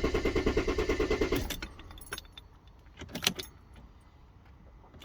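Mercedes S320 CDI diesel engine being cranked by the starter in a quick, even rhythm without firing, until the starter is released about a second and a half in. A brief clatter follows around three seconds in. The engine cranks but will not catch: a hard-starting diesel.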